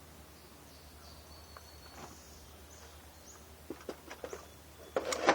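Metallic clicks and clacks of a bolt-action rifle's bolt being worked, a louder cluster near the end, while clearing a feeding malfunction: a cast-bullet round has jammed on the feed ramp.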